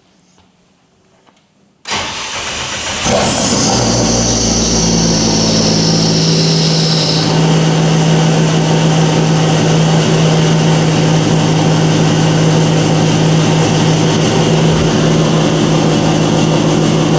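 Ford Barra inline-six engine in a drift ute starting: it catches about two seconds in, picks up a second later, then settles into a steady idle. A high hiss runs over the first few seconds of running.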